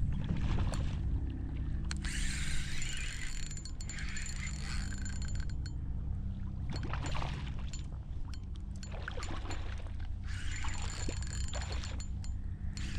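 Fishing reel being cranked in spells, its gears whirring, as a hooked redfish is reeled in, with the fish splashing at the surface. A steady low hum runs underneath.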